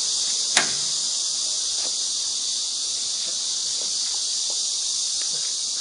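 A steady high-pitched hiss, with a single sharp click about half a second in.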